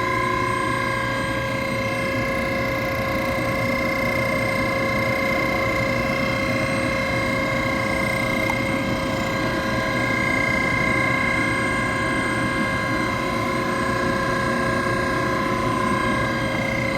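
Boiler circulation pump motor running with a steady whine over a rough, even noise, the sound of a bad motor bearing.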